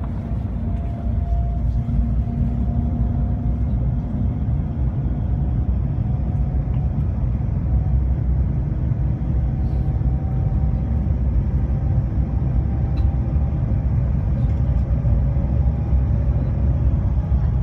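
Cabin noise of the Shanghai Transrapid maglev train accelerating past 200 km/h: a steady low rumble with a faint tone that slowly rises in pitch.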